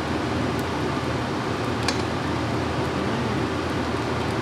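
Steady rushing noise of fried rice cooking in a steel wok over a gas burner, with one light clink about two seconds in.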